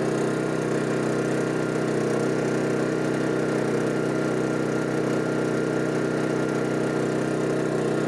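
MXR3500 petrol inverter generator running steadily with economy mode off, an even engine drone.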